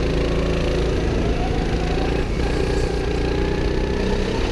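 Go-kart engine running under way, heard close up from on board the kart. Its note climbs slowly, breaks briefly a little past halfway, then climbs again, over the rumble of the kart and tyres.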